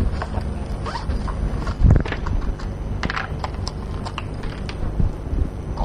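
Irregular taps, clicks and knocks of objects being handled, with one louder thump about two seconds in, over a steady low hum.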